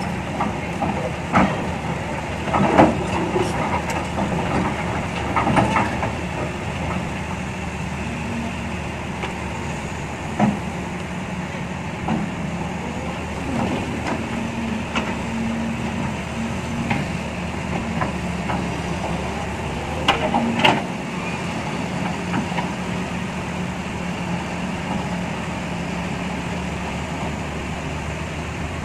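Heavy diesel excavator engine running steadily as it loads rock and sand into a dump truck, with scattered clunks and knocks from the loading; the loudest pair comes about 20 seconds in.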